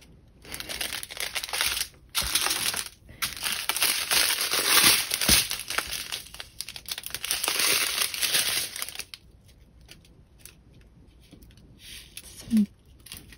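Small clear plastic bags of resin diamond-painting drills crinkling as they are handled and shuffled, with two short pauses. After about nine seconds it drops to faint rustles and ticks.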